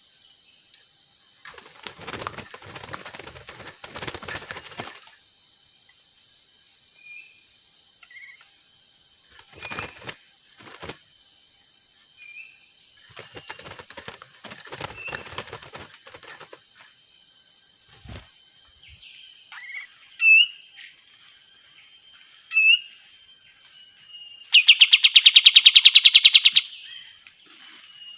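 Sooty-headed bulbuls: wings flapping in several bursts of a few seconds each, with short chirps in between, and near the end a loud, rapid chattering trill lasting about two seconds.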